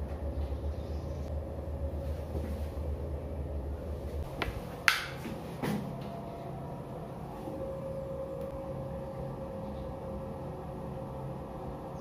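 Handling noises from removing the inlet filter of a shower water heater: a low rumble that stops about four seconds in, then a sharp click about five seconds in and a smaller one just after. A faint steady hum follows.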